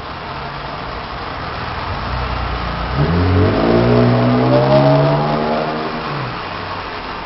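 A vehicle engine accelerating, its pitch climbing steadily for about three seconds before it fades, over a steady background hiss.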